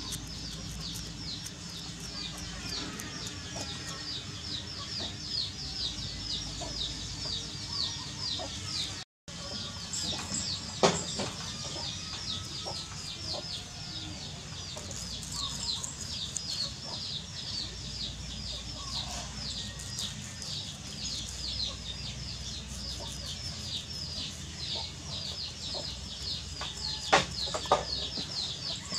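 Steady high-pitched chirping in the background, about three or four chirps a second, with a sharp click about eleven seconds in and two more near the end. The sound drops out briefly about nine seconds in.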